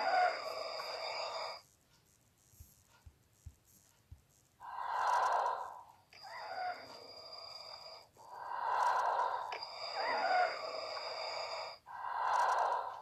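Darth Vader's dying respirator breathing sound effect: slow, wheezing breaths, each a loud draw followed by a quieter rasp, with a steady high whistle over the loud parts. One breath ends about a second and a half in, and after a pause of about three seconds three more breaths follow at even spacing.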